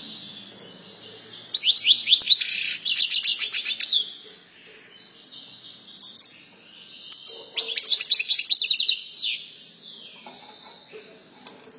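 European goldfinch of the large 'major' race singing: bursts of rapid, high twittering phrases and trills, broken by short pauses, the fullest about a second and a half in and again around seven to nine seconds in.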